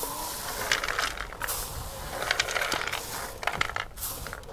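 Straw hand broom sweeping across a hot iron griddle, pushing sand-roasted chickpeas off into a tin tray: several brushing strokes about a second apart with the chickpeas clattering onto the metal. The chickpeas are done roasting and are being taken off before they burn.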